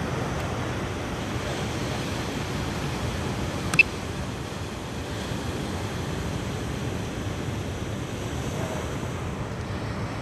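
Steady wash of ocean surf and wind, with one short sharp click about four seconds in.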